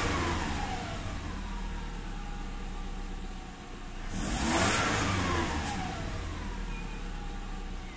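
Car engine idling and blipped twice on the throttle. The revs are falling back from the first blip at the start, and the second rises about four seconds in and sinks back to idle over the next two seconds.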